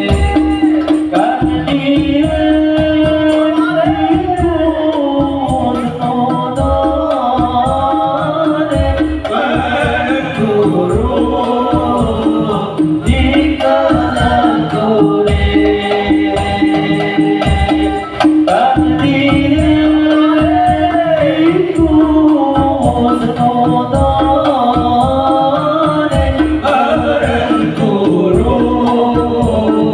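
Singing of a Javanese Islamic devotional song over musical accompaniment with a steady drum beat.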